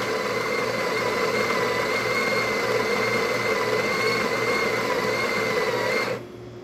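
Breville Barista Express espresso machine running with a steady mechanical hum for about six seconds, then stopping suddenly near the end.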